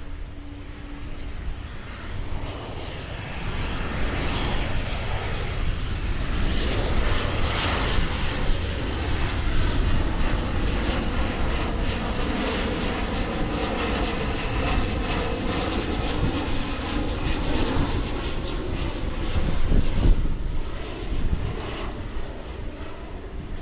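Jet airliner flying low overhead. Its engine noise swells from a few seconds in, stays loud, peaks late, then starts to fade near the end.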